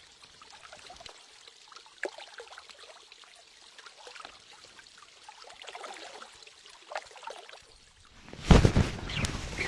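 Faint trickling and lapping of river water at the bank. About 8.5 seconds in, loud splashing suddenly starts and keeps going: a hooked fish thrashing at the surface.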